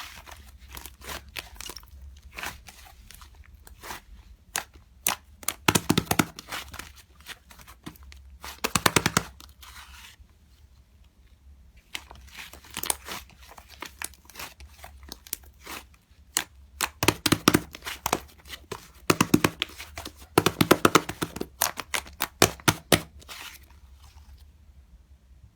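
Slime being squeezed and pressed by hand, giving scattered pops and several bursts of rapid crackling as trapped air pockets burst, the busiest stretch near the end.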